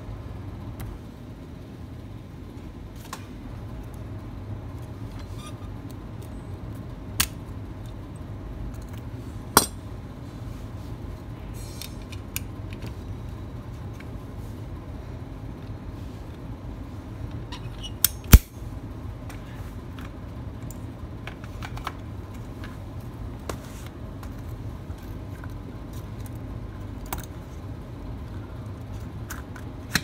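Sharp clicks and taps of small hard parts and tools being handled and set down on a phone-repair bench, the loudest a pair of knocks about 18 seconds in, over a steady low hum.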